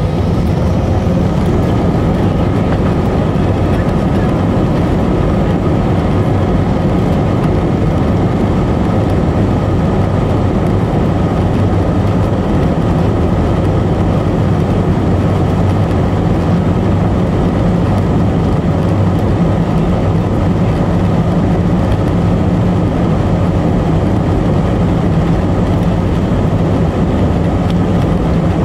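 Cabin noise inside an Airbus A321-200 taxiing, its IAE V2500 turbofans at low taxi power: a loud, steady rumble with a low hum and a faint high steady tone.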